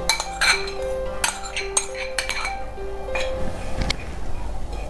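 A metal spoon clinking and scraping against a metal uruli (wide cooking pan) as grated coconut is tipped in and stirred with fried cashews, many short sharp clinks. Soft background music with held notes plays underneath.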